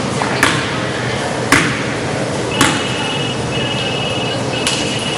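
Basketball bouncing on a hardwood gym floor, four bounces about a second apart, over the steady murmur of a gym crowd. A faint steady high tone comes in about halfway through.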